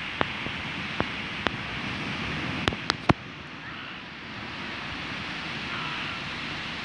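Small waves breaking and washing up a sandy beach, a steady rush of surf with some wind on the microphone. Several sharp clicks in the first half, the loudest about three seconds in.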